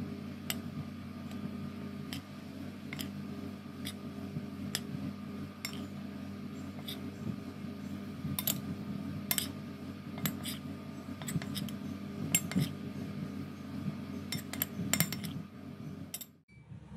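Irregular clinks and taps of a utensil against a glass mixing bowl as flour is added, over a steady low hum. The sound cuts off suddenly near the end.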